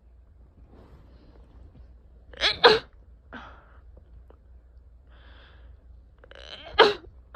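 A person sneezing twice, a few seconds apart, with breathy in-breaths before and between the sneezes.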